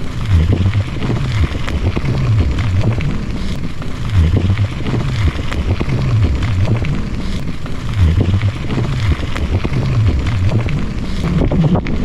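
Mountain bike rolling along a dirt trail: a steady low rumble of tyre noise and wind on the microphone, swelling and easing in a slow regular pulse about every second and a half.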